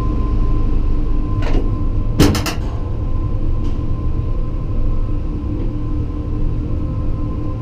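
Leitner 8-seat gondola lift cabin being carried slowly through the station: a steady mechanical hum and rumble, with a short burst of sharp knocks about two seconds in.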